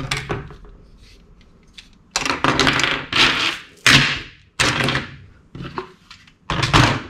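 Plastic toy guns and accessories being set down and shuffled on a tabletop: a run of about six short clattering knocks, the first about two seconds in.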